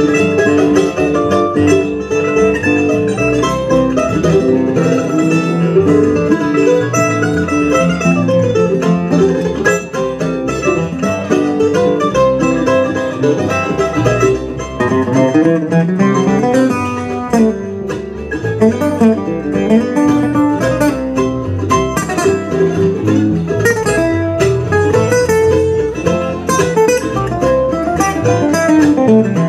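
Acoustic string band playing an instrumental passage in a bluegrass style: picked acoustic guitars and mandolin over upright bass, with no singing.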